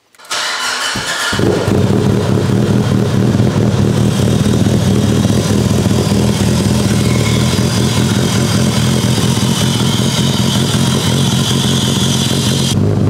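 Mitsubishi Lancer Evolution VIII's turbocharged four-cylinder engine cranks on the starter, catches after about a second and then idles steadily.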